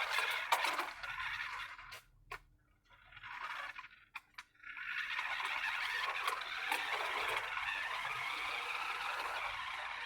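Large remote-control car driving: its motor and wheels run for about two seconds, stop with a few sharp clicks and a brief spurt, then run again steadily from about halfway on.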